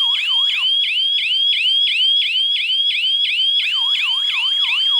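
G30 wireless burglar alarm's siren sounding loudly, a fast wailing whoop that rises in pitch about four to five times a second. It was set off by a door/window sensor being opened while the system was armed.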